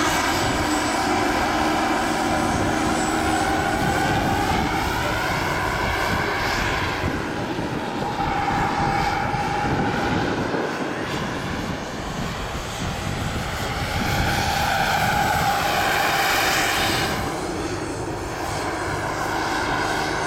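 Turbine engine and rotor of a radio-controlled scale MBB Bo 105 helicopter in flight: a steady whine with rotor noise, its pitch bending up and down as the model passes, twice.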